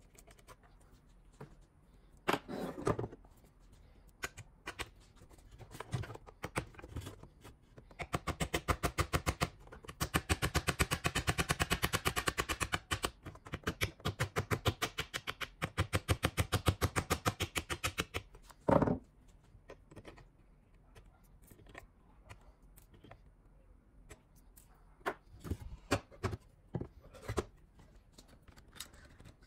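Claw hammer tapping rapidly on the ends of steel staples in a particleboard drawer side: a long run of light, evenly spaced taps, several a second, lasting about ten seconds, followed by one louder knock. Before it, a few clicks and a scrape of pliers working staples out of the particleboard.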